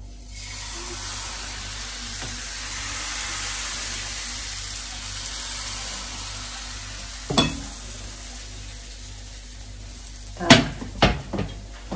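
Crepe batter sizzling in a hot greased frying pan. The sizzle starts suddenly just after the beginning, is strongest a few seconds in and slowly dies down. A sharp knock of a utensil on the pan comes about halfway, and a louder cluster of knocks near the end.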